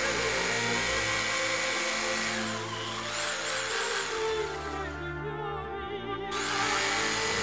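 Opera-style background music, with a reciprocating saw running as it cuts into a sculpted arm for a few seconds in the middle.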